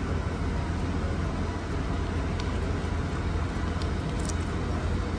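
Steady low hum and hiss of background room noise, with a few faint clicks in the middle.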